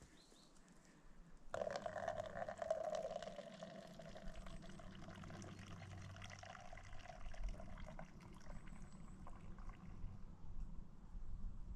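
Water running, starting suddenly about a second and a half in and slowly easing off.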